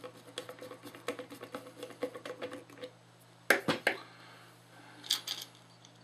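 Quick light clicking and scraping of small hand work on a plastic plug housing and its terminal screw, then a few sharp knocks about three and a half seconds in as a screwdriver is laid on the tabletop, and a brief light clatter a little later. A steady low electrical hum runs underneath.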